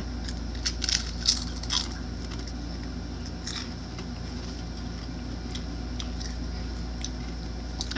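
Pringles potato crisps crunching as two people bite into them: a cluster of sharp crunches in the first two seconds and one more a little past the middle, then quieter chewing. A steady low hum runs underneath.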